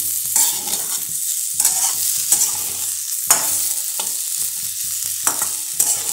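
A metal spatula stirring and scraping spiced potato pieces in a metal kadhai, with several sharp scrapes against the pan over a steady frying sizzle as the dry potato sabzi is sautéed.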